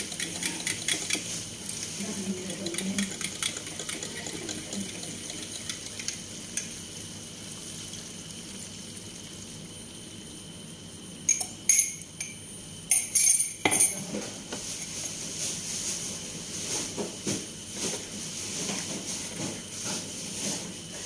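Kitchen clatter: pots, pans and metal utensils clinking and knocking, with a few loud sharp clatters a little past halfway.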